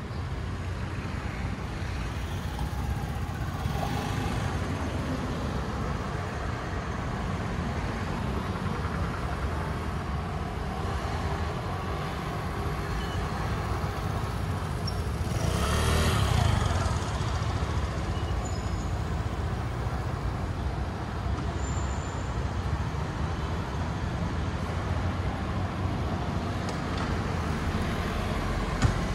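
Street traffic at a busy intersection: a steady rumble of scooter and car engines and tyres passing through. One vehicle passes close and loud about halfway through, and there is a brief click near the end.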